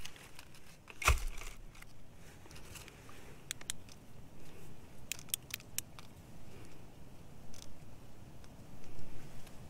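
Close handling of a wet crystal in the fingers: one knock with a low thump about a second in, then a few light, thin clicks in two small clusters.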